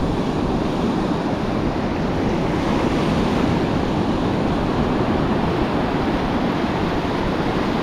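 Ocean surf breaking and washing up the beach close by, a steady loud rush, with wind buffeting the microphone.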